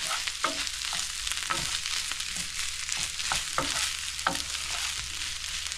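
Paneer fried rice sizzling in a hot pan while a spatula stirs it, the spatula knocking and scraping against the pan about a dozen times at an uneven pace.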